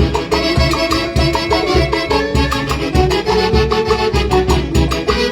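Peruvian huayno band music played with a steady, driving beat.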